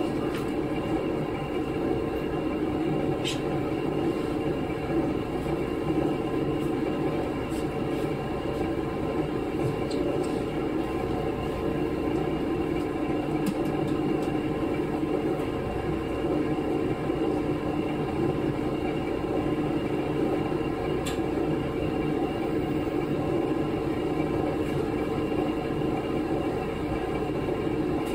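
KiHa 11 diesel railcar running with a steady, unchanging engine drone, with a couple of faint clicks.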